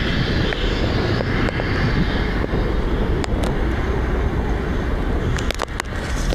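Construction-site ambience: wind buffeting the microphone over a steady low rumble of heavy machinery, with a few sharp knocks in the second half.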